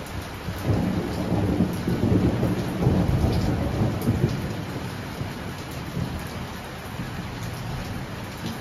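A peal of thunder rolls in about a second in, is loudest over the next few seconds and slowly dies away, over the steady hiss of heavy rain.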